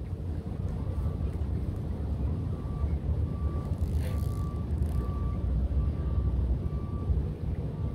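Steady low outdoor rumble, with faint short high beeps repeating about every three quarters of a second through the middle of the stretch.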